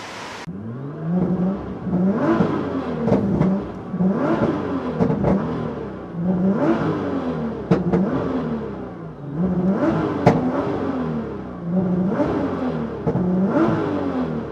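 Nissan GT-R R35's twin-turbo V6 revved up and let fall again and again, about every two seconds, with sharp exhaust pops and bangs from its pops-and-bangs map.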